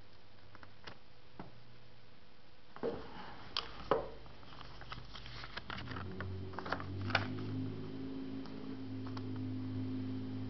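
Clicks and light rustling of a smartphone and its packaging being handled, busiest about a third of the way in. A low steady hum joins about halfway through.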